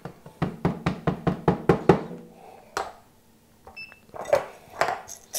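Rapid tapping on espresso-making gear: a quick run of sharp knocks, about seven a second for a second and a half, then a few single knocks. A brief high tone sounds just before four seconds in.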